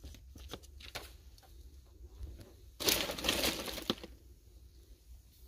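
Plastic being handled: light clicks and taps of plastic food containers on a carried tray, then a loud crinkly rustle lasting about a second, about three seconds in, ending with a sharp click.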